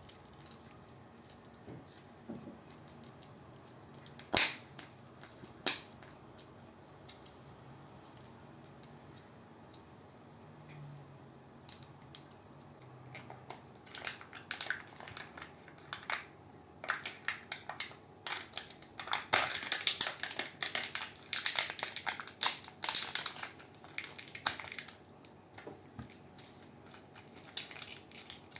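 Sweets packaging being handled and opened: two sharp clicks about four and six seconds in, then a long stretch of dense crinkling and crackling of wrappers in the second half.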